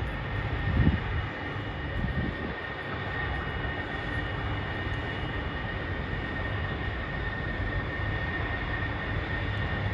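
Steady low rumble and hiss with a thin, steady high whine, and a few low thumps in the first couple of seconds.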